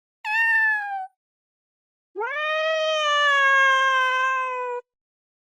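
Two meowing calls, like a cat's: a short one falling in pitch, then a long drawn-out one that rises and levels off.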